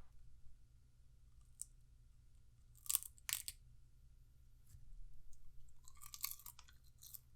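A person biting into and chewing a raw ghost pepper (bhut jolokia). The crunches are faint and crisp: two louder bites close together about three seconds in, then a run of smaller chewing clicks near the end.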